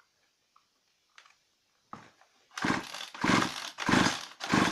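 Petrol chainsaw's recoil starter cord pulled in quick succession, about four short whirring pulls starting about two and a half seconds in, spinning the engine over with its spark plug out of the cylinder to test for spark; the engine does not fire.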